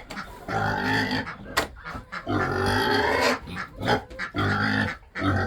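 Hungry pigs grunting and squealing at feeding time, a run of separate calls one after another with a few sharp clicks between them.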